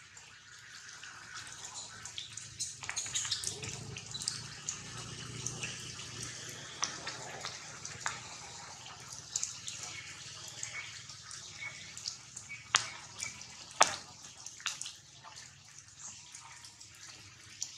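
Rain dripping onto leaves: scattered, irregular sharp drops over a faint steady hiss.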